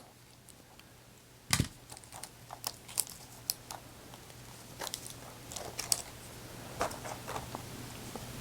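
Scattered small clicks and taps of a plastic key fob casing and its coin-cell batteries being handled, with one sharper click about one and a half seconds in.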